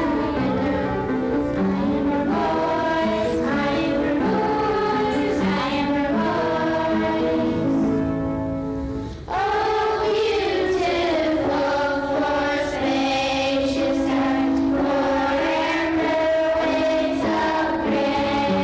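A children's choir singing a song, with a short break between phrases about nine seconds in.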